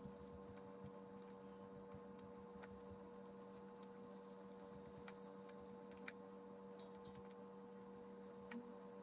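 Near silence: a steady faint electrical hum, with a few faint ticks.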